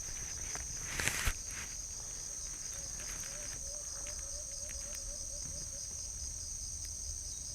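Steady, high-pitched insect chorus of crickets or cicadas, with a brief rustle about a second in.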